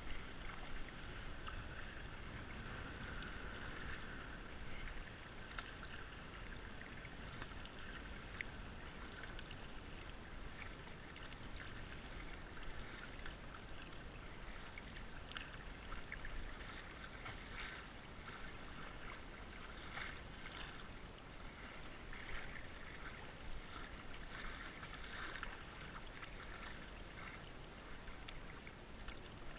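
Flowing creek water running steadily and lapping against a kayak's plastic hull, with scattered small splashes and drips.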